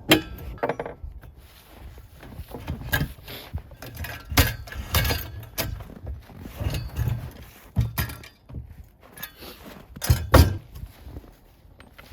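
Irregular metal clinks and knocks with dull thuds: the chainsaw and its Alaskan mill being handled and taken apart to turn the chain, which had been fitted backwards, the right way round.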